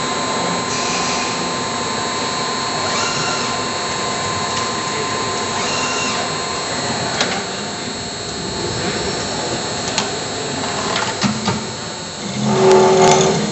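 Special-purpose unit machine on a production line running, its machining head cutting a metal part: a steady mechanical noise with a constant whine and a few sharp clicks. Near the end a louder pitched whine sounds briefly.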